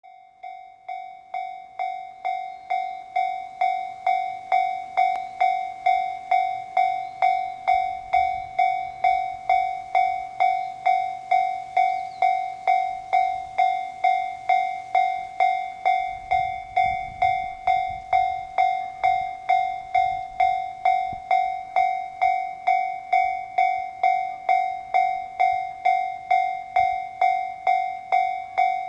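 Japanese railway level-crossing warning bell ringing, a single-pitched ding repeated about twice a second, fading in over the first few seconds. It is the alarm that a train is approaching or departing through the crossing.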